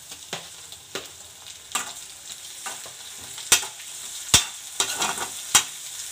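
Chopped tomatoes sizzling in hot oil with fried onions in a hammered metal kadai, stirred with a metal spatula that knocks sharply against the pan about six times, loudest in the second half.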